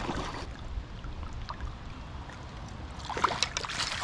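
A hooked common carp splashing at the surface beside a landing net. Near the end, water splashes and drips as the net is lifted out with the fish in it.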